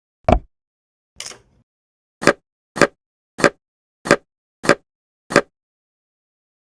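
A sharp plop, a faint one, then a run of six short plops about 0.6 s apart, like cartoon sound effects.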